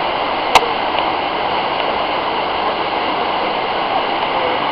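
Steady rushing of running water, with one sharp click about half a second in.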